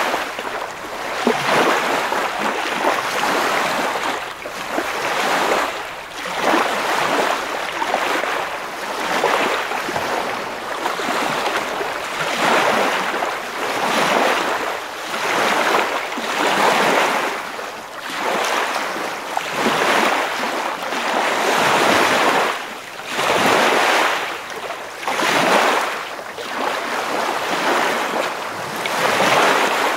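Ocean surf: waves breaking and washing in, the rushing noise swelling and fading every two seconds or so.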